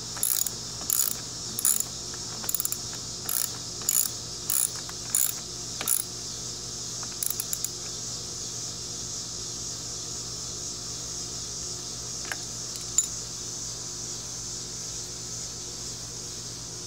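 Ratchet socket wrench clicking in short bursts, one burst per back-swing about every half second, as a lawnmower wheel bolt is tightened. The clicking stops after about seven seconds.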